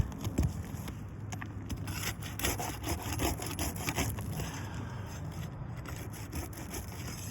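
Scraping and rubbing of a tool worked under roof shingles to pull their fasteners, in irregular strokes, with a sharp knock at the start.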